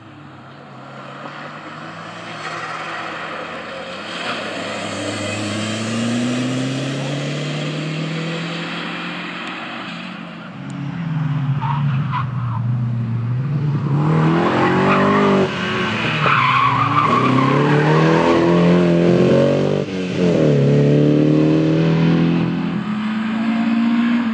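Rally cars at full throttle on a stage. One car's engine is heard revving up through the gears in the distance, and then a second car approaches loudly, its engine note climbing and dropping at each upshift.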